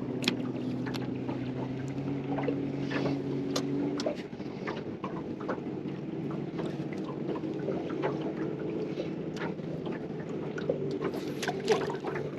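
Small fishing boat's motor running with a steady low hum that shifts in pitch about two seconds in and again near four seconds, with scattered light clicks and knocks.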